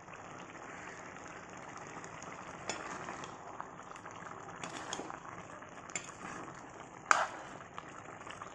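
Thick colocasia curry bubbling and sizzling in a wok as a metal spoon stirs it, with a steady bubbling hiss and a few light knocks of the spoon, the sharpest clink against the pan about seven seconds in.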